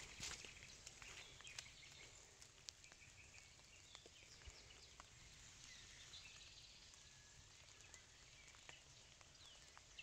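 Near silence: faint outdoor ambience with distant birds chirping now and then and a few faint clicks.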